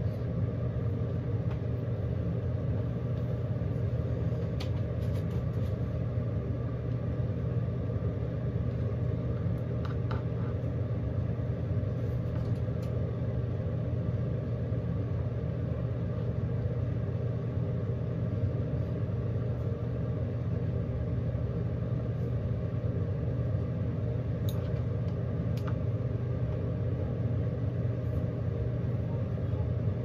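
Steady low rumbling hum of background machinery, unchanging throughout, with a few faint clicks scattered through it.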